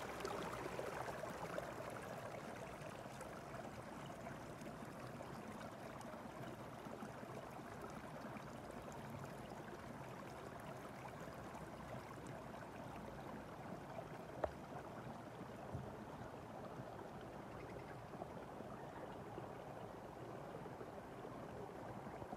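Steady rushing of running water, like a stream, easing a little over the first couple of seconds, with a single sharp click about two-thirds of the way through.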